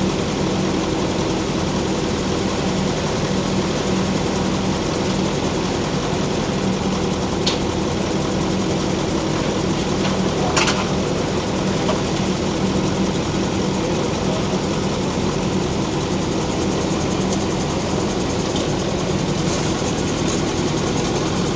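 Mobile crane's diesel engine running steadily, holding a steel truss on the hook. A sharp knock is heard about ten seconds in.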